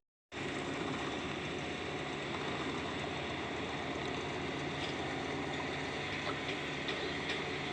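Heavy diesel machinery engine running steadily after a brief silent gap at the very start, with a few faint clicks late on.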